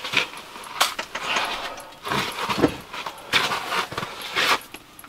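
Bursts of rustling and handling noise, about half a dozen, as an angler in heavy winter bibs shifts, stands up and moves around in a fabric ice-fishing shelter while playing a hooked fish on the rod.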